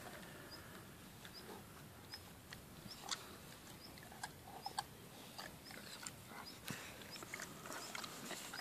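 Newfoundland dog nosing and digging at a mole hole in loose soil: irregular snuffles, scuffs and sharp little clicks of earth.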